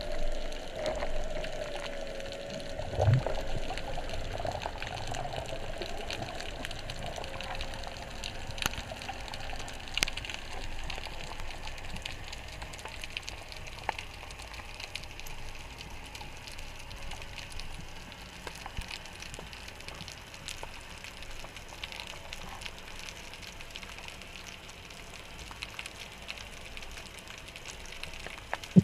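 Underwater ambience picked up by a diver's camera: a steady wash of water noise with scattered sharp clicks and crackles. A faint wavering tone runs through the first several seconds, and a dull thump comes about three seconds in.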